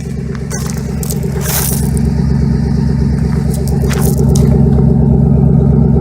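An engine idling steadily with a regular low pulse that grows a little louder, with scrapes and crunches over it.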